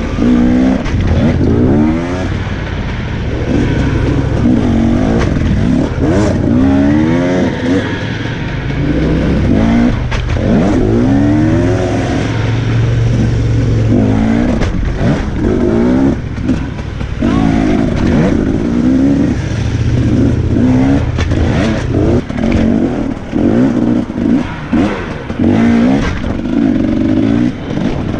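Onboard sound of a 2017 Husqvarna TE 250 two-stroke enduro motorcycle engine revving hard, its pitch climbing again and again and dropping with each gear change. In the last few seconds the throttle is opened and shut in short bursts.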